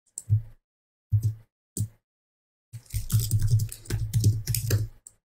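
Typing on a computer keyboard: a few single keystrokes, then a quick run of keys from about three seconds in.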